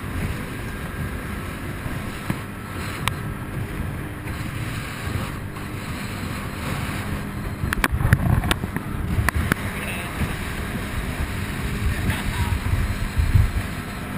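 Small speedboat running fast over choppy water, heard mostly as wind buffeting the microphone and water rushing past the hull. A few sharp knocks come a little over halfway through.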